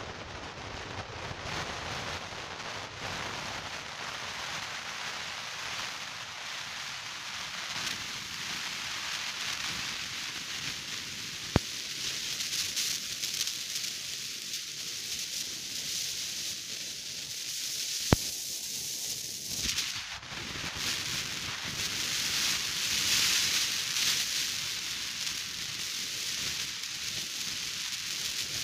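Steady hiss of an airliner cabin's ventilation, with two sharp clicks, one about eleven seconds in and one about eighteen seconds in.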